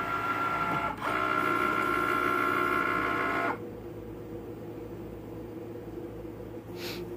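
Cricut Maker cutting machine running as it works thin felt with its rotary blade: its motors give a loud steady whine, with a brief break about a second in. A little past three seconds the whine drops to a quieter, lower hum.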